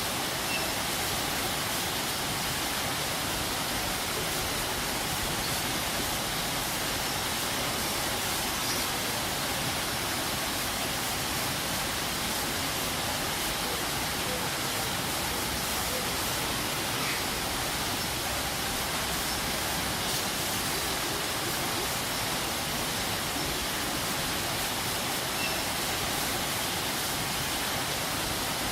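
Waterfall: water falling and rushing in a steady, even roar without a break.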